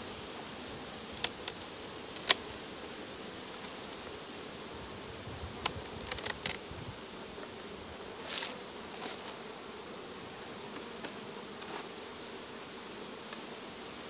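Honey bees buzzing steadily around an opened hive. A few sharp knocks and scrapes come from the wooden hive box being lifted off, the loudest about two seconds in and around eight seconds in.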